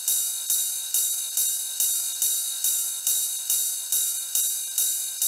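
Transition-sting music: a bright, hissy percussion pattern of about two strokes a second, like a shaker or tambourine, over a steady high tone, with no bass.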